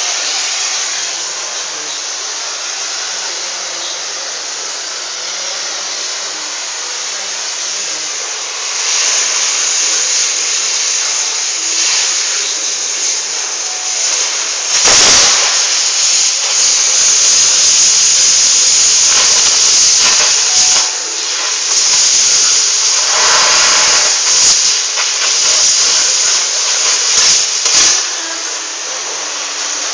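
A loud, steady hissing rush that grows louder about nine seconds in, with a short heavy burst around fifteen seconds and rougher surges through the second half.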